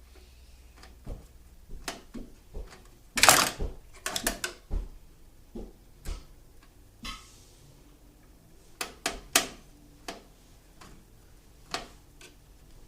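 Scattered sharp clicks and knocks of computer parts being handled, with a loud quick cluster about three seconds in and another about nine seconds in.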